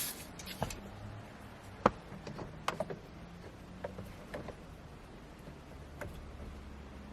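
A few short, light clicks and taps, scattered irregularly, over a faint low steady hum.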